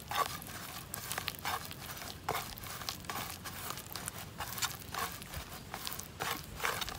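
Hand squishing and kneading a wet chilli masala paste on a steel plate: irregular soft squelches and small clicks.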